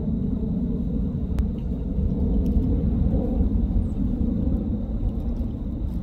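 Steady low rumbling noise that wavers in loudness, with a faint click about a second and a half in.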